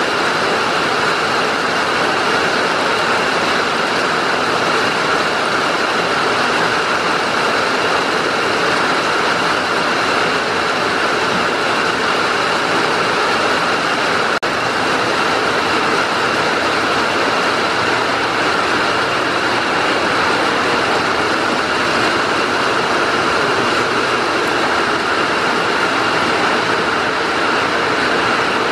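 Heavy rain falling in a steady, even hiss, with no letup.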